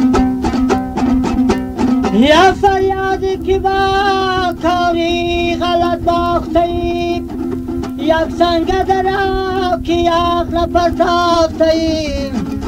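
Dambura, the Afghan long-necked lute, strummed in a quick, even rhythm over its steady drone. About two seconds in a singer slides up into a long, held, wavering line of Farkhar rubai folk song that ends just before the close. It is heard from an old cassette recording.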